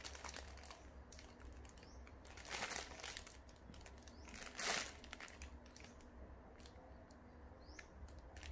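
Clear plastic packaging around a plush toy crinkling as it is handled, faint, with two short louder rustles about two and a half and four and a half seconds in.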